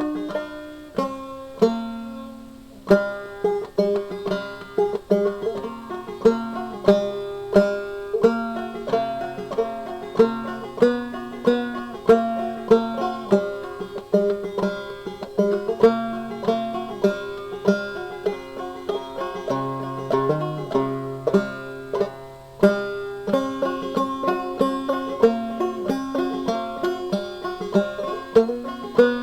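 Background banjo music: quick plucked notes in a lively bluegrass style.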